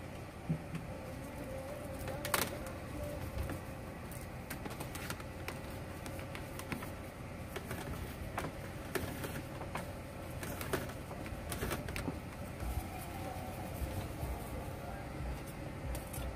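Faint clicks and rustles of the backup camera's wire and licence plate being handled, with one sharper click about two and a half seconds in, over a steady low background hum.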